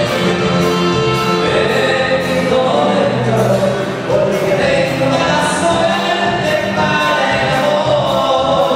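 Live norteño band music with singing, playing loud and steady over a regular beat.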